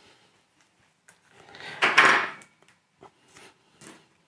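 Rotary cable stripper working the jacket of a Cat6 network cable, then the cut sheath pulled off the twisted pairs with one loud rasping scrape about two seconds in, followed by a few light knocks as the tool is handled and set down.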